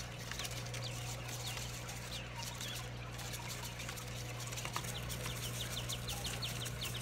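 Newly hatched quail chicks peeping: short high cheeps, a few at first, then coming thick and fast over the last few seconds, over a steady low hum.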